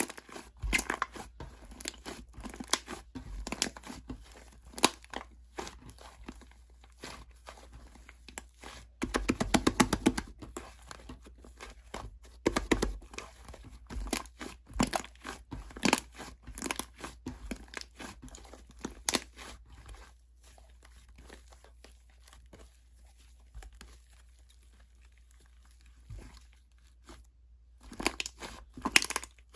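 White fluffy slime being squished and pulled by hand, making irregular crackling, popping and tearing sounds. A dense run of rapid crackles comes about nine seconds in, and the handling grows quieter and sparser for several seconds in the latter half.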